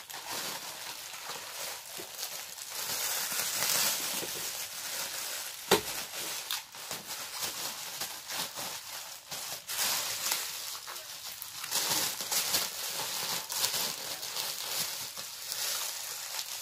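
Black plastic bag packaging crinkling and rustling as it is pulled and handled, with one sharp click about six seconds in.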